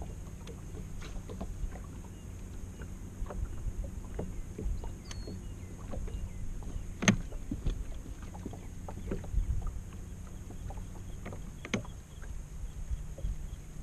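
Water lapping against a bass boat's hull, a low uneven rumble, with scattered light clicks and one sharper click about seven seconds in.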